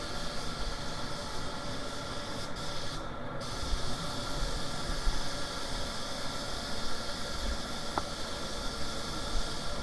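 Compressed-air paint spray gun hissing steadily as it sprays paint, with a brief break in the hiss about three seconds in.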